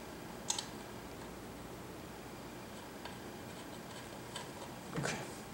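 Faint clicks and light handling noise from fingers working a screw into the metal hub of a swing-arm lamp's shade, with one sharper click about half a second in and a soft rustle near the end, over quiet room tone.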